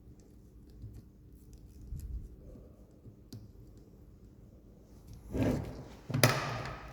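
Wires and a plastic connector being handled: faint scattered clicks and rustling, then two louder rustling bursts near the end.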